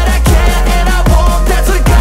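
Loud electronic dance music for a breaking battle, with a steady drum beat and deep bass notes that slide down in pitch.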